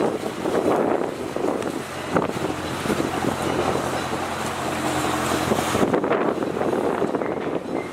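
Strong wind buffeting the microphone over choppy river water. A steady low engine hum, most likely from a boat, runs underneath from about two seconds in until about six seconds in.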